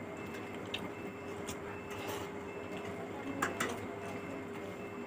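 Close-up hand-eating sounds: fingers mixing rice with fish curry and mouth chewing, heard as scattered soft clicks with a cluster about three and a half seconds in, over a steady low hum.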